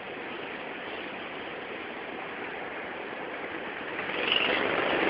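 Go-kart engines running on the track as an even drone, growing louder about four seconds in as a kart comes closer.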